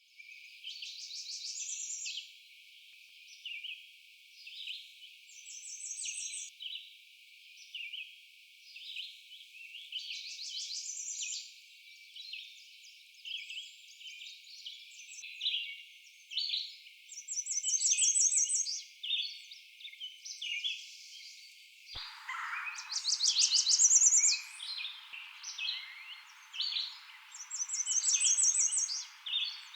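Songbirds singing: a yellow warbler repeating its song every few seconds among brown-headed cowbirds calling. There is a click about two-thirds of the way through, after which a steady background hiss comes in.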